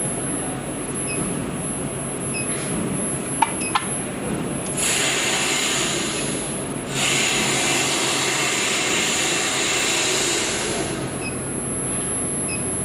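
Steady industrial machinery noise, with a louder hiss for about six seconds in the middle and two sharp clicks shortly before it.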